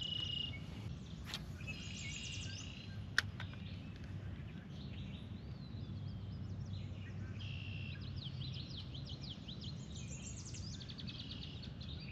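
Birds singing in short, quickly repeated high trilled phrases, several times over, above a low steady rumble. A single sharp click about three seconds in.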